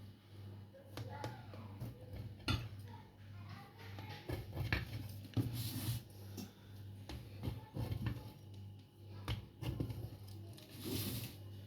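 Scattered light knocks, clicks and brief rustles from a piece of cake being handled on a plate, over a low steady hum.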